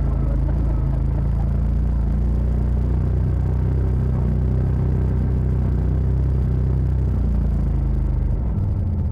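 Side-by-side UTV engine running steadily at low revs as it drives, a low rumbling drone; its pitch shifts near the end.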